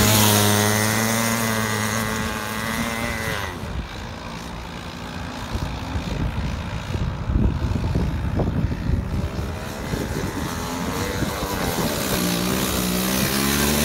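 Go-kart engine passing close and loud at the start, its pitch dropping as it goes by. It then fades into the distance for several seconds and grows louder again as the kart comes back near the end.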